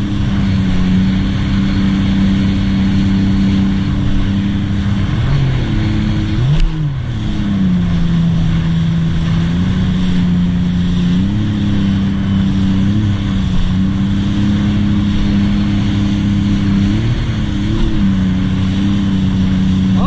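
Supercharged engine of a 2018 Sea-Doo RXT-X 300 personal watercraft, fitted with a Riva Racing free-flow exhaust, running steadily at speed under a constant rush of wind and water. About six seconds in the pitch drops and quickly climbs back, as the throttle eases off for a moment; smaller waver in the engine note follows later.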